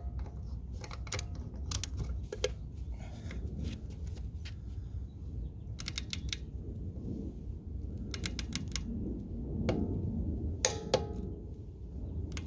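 Scattered clicks and light metallic rattles of hand tools and sockets being handled, with a few short runs of rapid clicks, over a low steady hum. No impact wrench is hammering.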